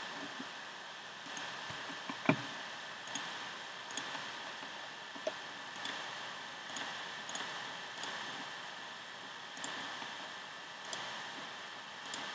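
Scattered clicks from operating a computer, about a dozen irregularly spaced, over a steady hiss with a faint high hum. The loudest click, a couple of seconds in, carries a dull thump.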